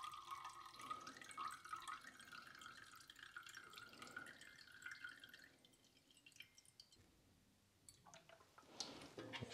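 96% ethanol poured from one glass beaker into another, a faint trickle whose pitch slowly rises as the beaker fills, stopping about five and a half seconds in. Near the end, purified water squirted briefly from a plastic wash bottle into the beaker.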